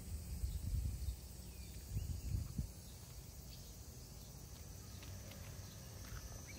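Faint outdoor ambience: an uneven low rumble, like wind on the microphone, loudest in the first couple of seconds, with a faint high steady hum and a few faint chirps.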